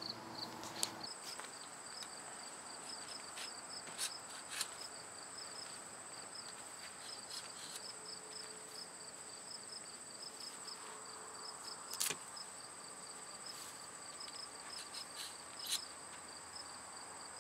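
Crickets chirping: a fast, evenly pulsing chirp, joined about a second in by a steady, higher trill. A few light clicks and knocks sound over it, the sharpest about twelve seconds in.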